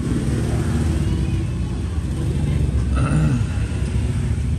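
A steady low background rumble, with a brief faint sound about three seconds in.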